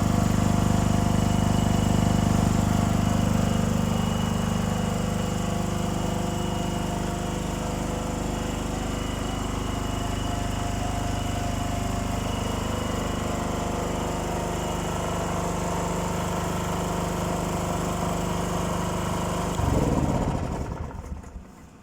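Small 2.5 kVA petrol generator engine running steadily on its newly fitted carburetor. About 20 seconds in it is switched off, and its note falls as it runs down to a stop.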